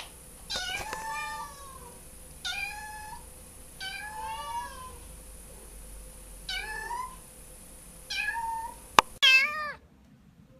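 Kitten meowing over and over, about seven short high-pitched meows a second or two apart. A sharp click comes just before the last meow near the end.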